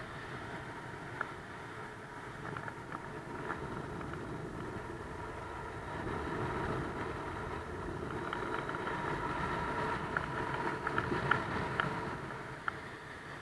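Wind rushing over the microphone during a paraglider flight: a steady rushing noise that gets louder about six seconds in. A faint high steady tone runs under it, and light clicks are scattered through the last few seconds.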